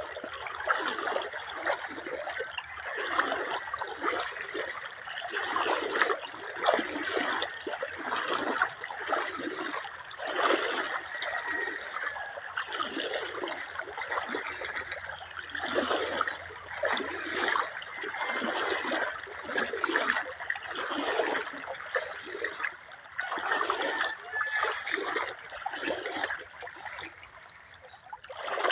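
River water running over rocks, splashing and gurgling in uneven surges.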